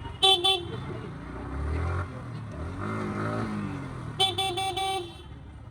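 A vehicle horn beeps twice in quick succession, then four quick beeps at the same pitch about four seconds in, over the rumble of a motorcycle engine and busy street traffic.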